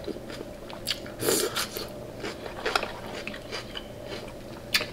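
Close-up eating sounds: biting and chewing king crab legs, with scattered sharp clicks and a louder crunch about a second and a quarter in.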